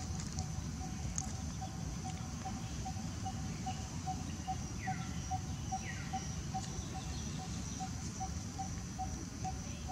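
Outdoor woodland ambience: a steady high whine over a low rumble, with a low call repeating about three times a second and two short downward-sliding calls about halfway through.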